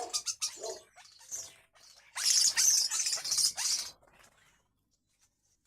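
Two birds quarrelling: short scratchy bursts, then a louder run of harsh, hissing squawks for about two seconds in the middle.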